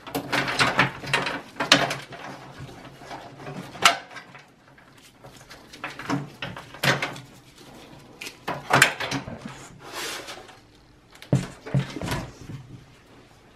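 Cables and plastic connectors being pulled out of an emptied steel PC chassis by gloved hands, dragging and knocking against the sheet metal in irregular scrapes and rustles. Near the end, a couple of sharper knocks as the case is handled and stood up.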